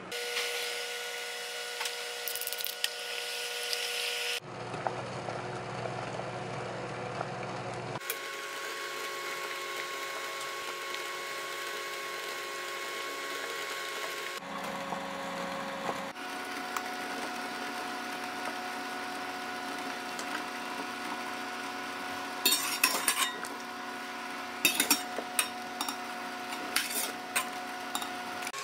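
Steady kitchen-appliance hum made of several steady tones whose pitch shifts a few times, under bagels simmering in a pot of water. Near the end a metal spatula clicks and knocks against the pot several times as a bagel is lifted out.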